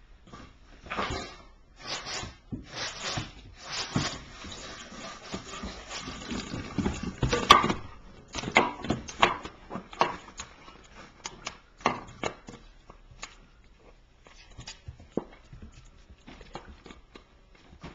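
Puppy playing on a hardwood floor: a plastic bottle being batted and knocked about on the boards, with claws scrabbling and clicking. The knocks and scrapes come thick in the first half, the loudest about seven and a half seconds in, then thin out to scattered taps.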